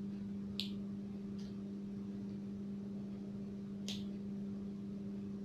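Small pruning snips cutting thin pomegranate twig tips: a sharp snip about half a second in, a fainter one soon after, and another near four seconds, over a steady low hum.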